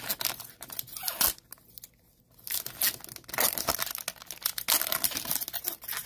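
Foil wrapper of a 2020-21 NBA Hoops trading-card pack being torn open and crinkled by hand, in irregular bursts of tearing and crackling.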